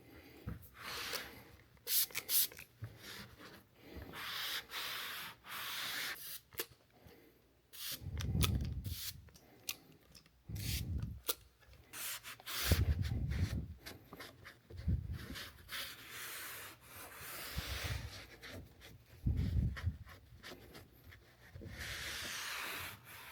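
A cloth rubbing and scrubbing along a car's rubber weatherstrip molding to clean it, in repeated back-and-forth strokes, with a few dull bumps from handling.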